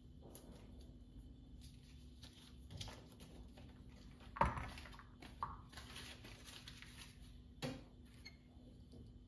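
A few scattered knocks and clatters of objects being handled, the loudest about four and a half seconds in and another near the end.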